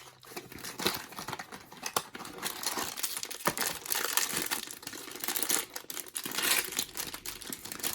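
Packaging crinkling and rustling in irregular crackles and small clicks as a blind box is opened and the figure inside is unwrapped.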